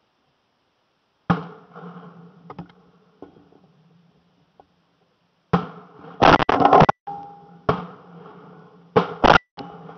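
Shotgun shots picked up by a camera mounted on the gun barrel. There are sharp reports about a second in, again around five and a half and seven and a half seconds, and once more near the end, each ringing out and dying away. Between them come two bursts of loud, distorted noise.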